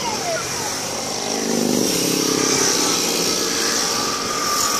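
A line of motorcycles riding past one after another at low road speed, their engines running steadily. One machine passes close about two seconds in.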